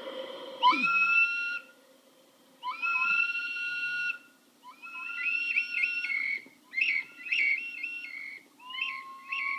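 Handmade whistle-type wind instrument played to imitate nature sounds: two long whistled notes that swoop up and then hold for about a second each, followed by quicker warbling, chirping phrases.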